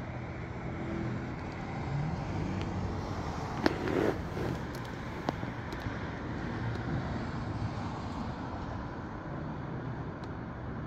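Steady outdoor background noise of distant road traffic, with a sharp click and a brief rustle of camera handling about four seconds in.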